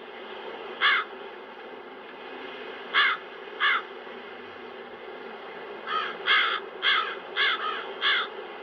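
Crows cawing: three separate caws spaced a second or two apart, then a quick run of about six caws, over a steady rush of wind.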